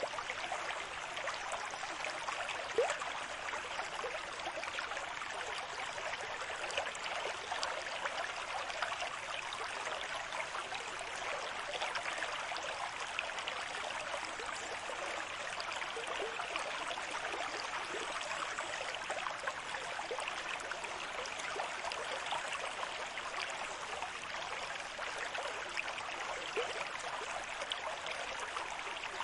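Steady running water: an even, unbroken rush dense with small trickles and splashes, holding the same level throughout.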